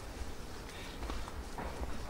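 Footsteps of a person walking, a few scuffing steps in the second second, over a steady low rumble.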